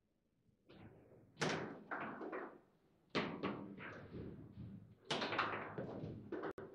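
Table football (foosball) table in play: a quick, irregular series of sharp knocks and clacks as the ball strikes the plastic players and table walls and the rods are snapped. It starts after a short quiet moment, with a brief pause about halfway.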